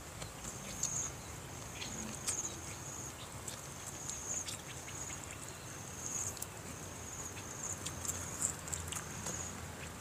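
A high-pitched insect trill repeats about once a second in short rattling phrases, over faint clicks and rustles of fingers picking apart grilled catfish on a banana leaf.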